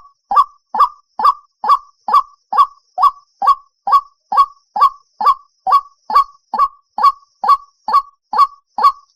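White-breasted waterhen calling: a monotonous run of short, identical 'kook' notes repeated evenly about twice a second.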